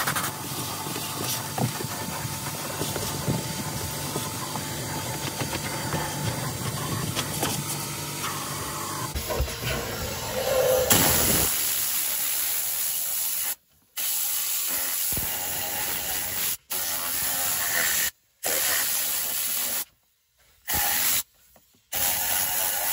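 Handheld steam cleaner hissing steadily into a cup holder for about the first ten seconds. Then compressed air hisses through an air-powered detailing brush as it scrubs, broken by several abrupt silent gaps.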